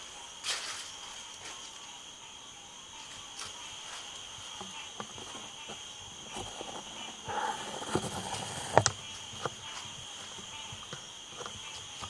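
Crickets chirring steadily in a high, even trill, with scattered small clicks and knocks over it; the loudest knock comes nearly nine seconds in.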